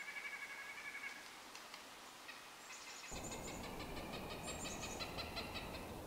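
Wild birds calling: a short call of quick pitched notes in the first second, then a rapid run of high chips and trills from about three seconds in. About three seconds in, the background hiss and low rumble step up as the audio switches from one recorder's microphone to the other.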